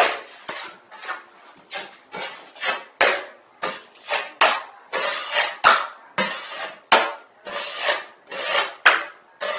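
Metal putty knife scraping wet patching plaster in quick repeated strokes, about two a second, with a sharp clink of the blade at the start of some strokes.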